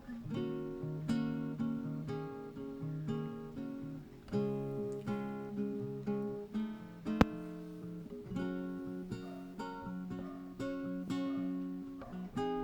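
Background acoustic guitar music, a run of plucked and strummed notes. One sharp click cuts through about seven seconds in.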